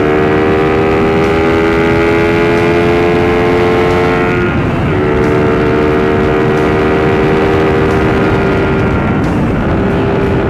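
Suzuki Raider R150 motorcycle engine under way, its pitch climbing slowly as it pulls, dipping briefly about four and a half seconds in, then holding steady, with another short dip near the end. A steady rush of wind and road noise runs underneath.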